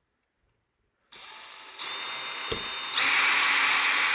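Power drill with a small bit drilling holes: after about a second of silence the motor starts and runs steadily, its whine stepping up in speed and loudness twice, with a brief click in the middle.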